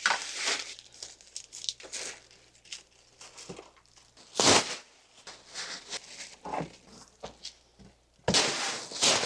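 White plastic trash bag rustling and crinkling in irregular bursts as it is handled and shaken, loudest about halfway through and again near the end.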